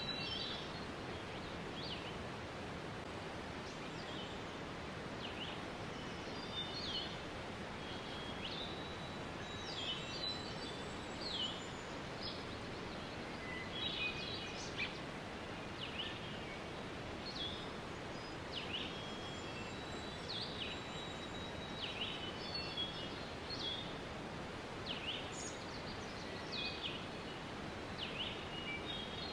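Steady rush of falling water with small birds chirping over it: frequent short, high chirps and quick downward-sweeping notes, scattered throughout.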